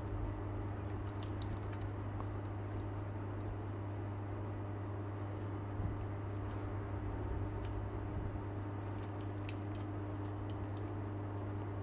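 Scattered faint clicks of plastic model kit parts being handled and fitted together, over a steady electrical hum.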